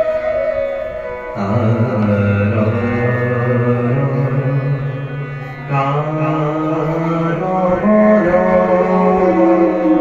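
A borgeet, an Assamese devotional song, sung by a male voice with bamboo flute accompaniment, in long-held notes that shift to new pitches about a second and a half in and again near six seconds.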